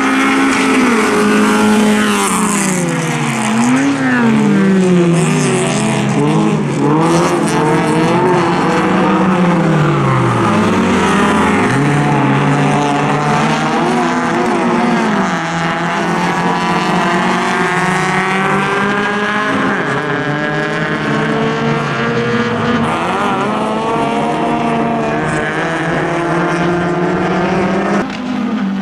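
Several rallycross cars racing together, their engines revving up and dropping repeatedly through gear changes and corners.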